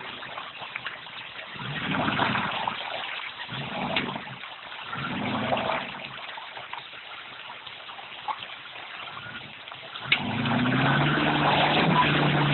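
A bobtail Range Rover's 4.2-litre V8 revs in three short bursts while water and mud splash around it. About ten seconds in, the engine comes in louder and holds a steady note, its pitch climbing slowly as it pulls.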